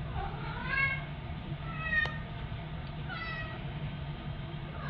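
Cat meowing three times, short calls about a second apart, the first rising in pitch; a sharp click sounds during the second meow.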